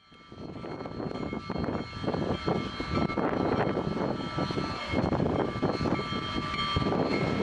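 Union Pacific 'Big Boy' steam locomotive running, a dense noise of steam exhaust and hiss with irregular puffs.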